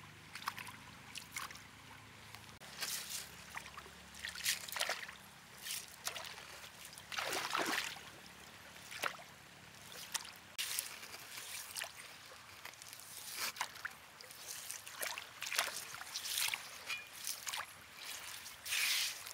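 Hands splashing and sloshing in shallow river water, scooping at the gravel bed in irregular bursts every second or two.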